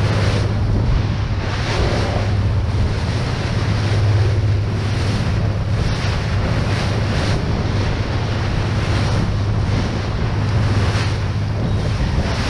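Fishing boat under way at sea: its engine running with a steady low hum beneath the rush of the foaming wake, and wind buffeting the microphone in repeated gusts.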